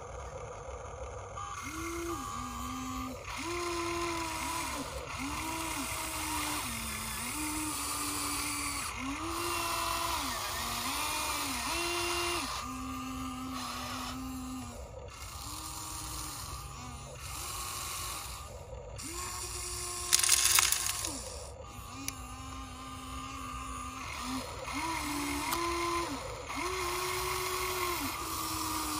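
Huina 1593 RC excavator's electric actuator motors whining in stop-start spurts of a second or two, the pitch shifting as each boom, arm and bucket function is run. A brief loud burst of noise comes about two-thirds of the way through.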